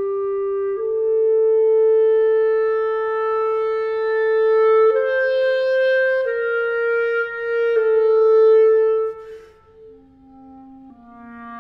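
Solo clarinet playing a slow line of long, held notes, a new pitch every second or two. About nine seconds in the loud line breaks off, and the clarinet comes back softly on lower notes.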